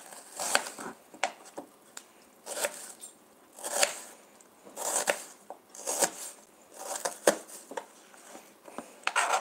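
Knife cutting an onion on a plastic cutting board: a string of separate crisp slicing strokes at roughly one a second, unevenly spaced.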